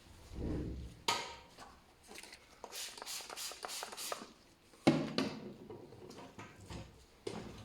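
Hand work with tools and materials: a series of sharp clicks and knocks, with a quick run of short bright rubbing or scraping strokes in the middle and a loud knock about five seconds in.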